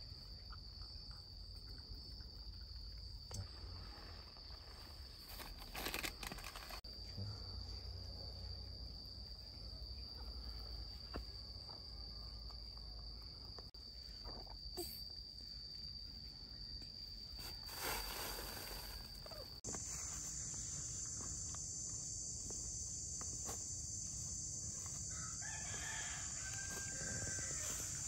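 A rooster crowing over a steady, high insect buzz of crickets or cicadas. The buzz jumps higher in pitch about two-thirds of the way through.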